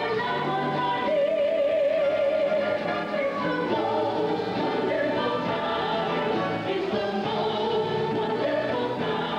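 A small group of singers performing a song with accompaniment. About a second in, one voice holds a long note with vibrato for about two seconds.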